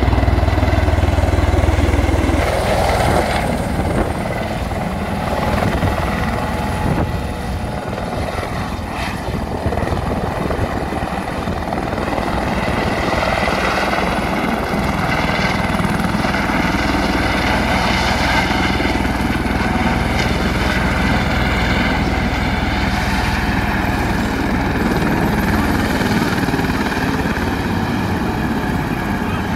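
Helicopter descending to land, its rotor and engine running without a break. Loudest in the first few seconds, a little quieter for a few seconds, then steady once the helicopter is down near the ground.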